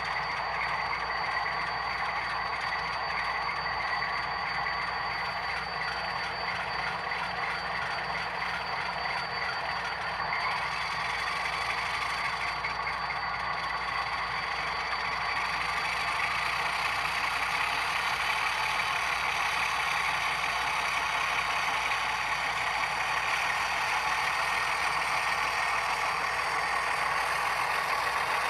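Model CP Rail diesel road switcher running with its diesel engine sound and rattling running gear, with a thin steady whine on top. It grows louder in the second half as the locomotive comes close and rolls past.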